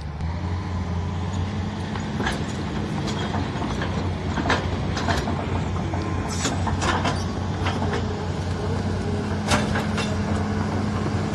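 Crawler excavator's diesel engine running steadily while the machine works its boom and bucket, with scattered sharp metallic clanks and knocks.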